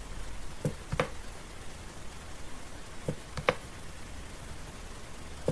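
Computer mouse clicking: a few short clicks in pairs, about a second in and again about three seconds in.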